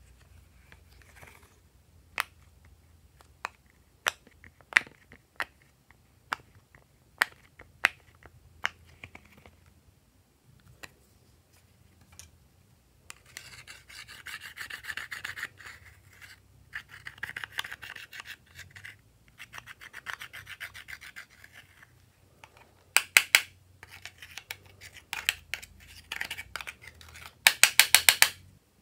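Silicone pop-it fidget toy bubbles popped one at a time, about a dozen sharp pops. Then a thin metal tool scraping pressed eyeshadow powder out of a compact palette for several seconds. Near the end come quick runs of rapid taps from the tool.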